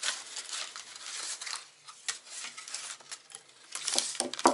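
A knife scraping and cutting at a tag on a rifle, mixed with crinkling wrapping paper and handling noise, with a sharp knock near the end.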